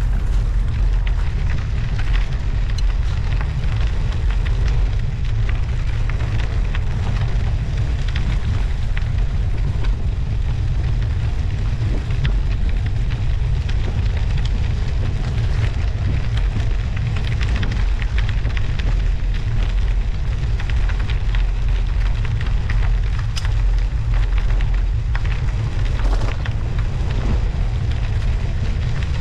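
Steady wind noise on a moving bicycle's front-mounted action-camera microphone, the loudest part a low rumble, over a continuous fine crackle of studded winter tyres rolling on snow and ice.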